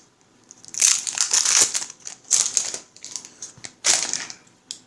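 Plastic wrapping crinkling as a deck of game cards is handled and unwrapped, in three rustling bursts about a second apart.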